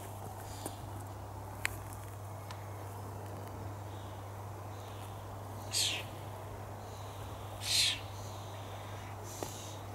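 Outdoor garden ambience: a steady low hum with two short, high bird calls about two seconds apart in the second half.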